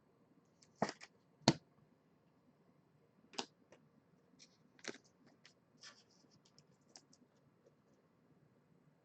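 Baseball trading cards being handled and sorted by hand: a scatter of sharp clicks and scratchy ticks, the loudest about a second and a half in.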